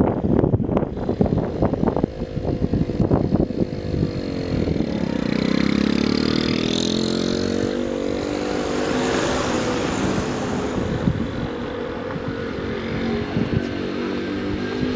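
Wind buffeting the camera microphone over a vehicle's rumble, then a steady motor hum that drops in pitch about four seconds in and holds level.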